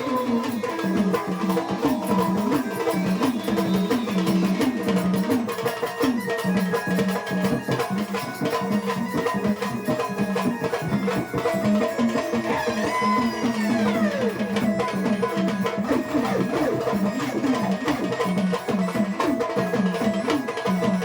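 Instrumental passage of a Marathi devotional folk song: a fast, steady hand-drum and wood-block rhythm under a sustained melody, with a swooping rise-and-fall of pitch a little after halfway.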